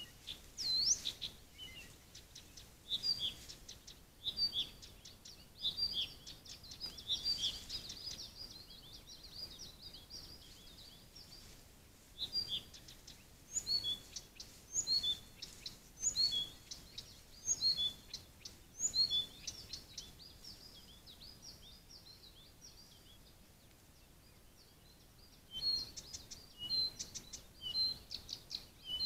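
Songbirds singing and calling in short high chirps and trills, busiest at the start, then coming in a spaced series, falling away for a few seconds and picking up again near the end, over a faint steady hiss.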